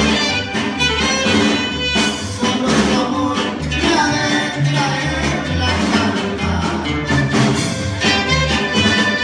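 Sonoran regional band music playing, with a pulsing bass line under the melody instruments.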